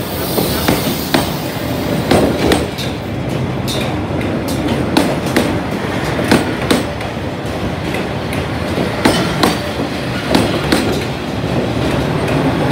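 Passenger train coaches rolling past close by, a steady running noise with the wheels clattering and knocking at irregular intervals.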